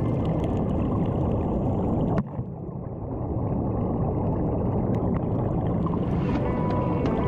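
Steady underwater rumble and bubbling from air streaming out of a sea-walker diving helmet fed by a surface air hose. About two seconds in the sound drops off sharply, then builds back over the next second or two.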